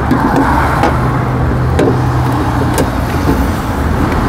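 Steady drone of a running engine, with a few light clicks and taps from hands working among plastic parts in an engine bay.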